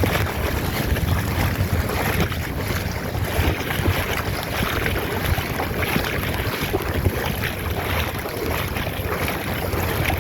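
Seawater floodwater rushing in a strong current, a steady noise, with wind buffeting the microphone.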